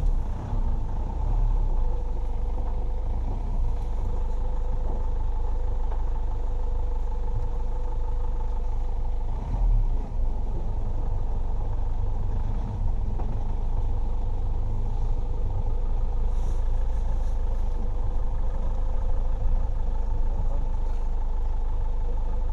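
Open safari vehicle's engine running steadily with a low rumble while the vehicle idles and creeps along.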